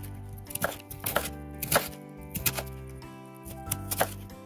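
Chef's knife chopping raw kohlrabi, each cut crunching through the firm flesh and knocking on a wooden cutting board, several cuts at an uneven pace.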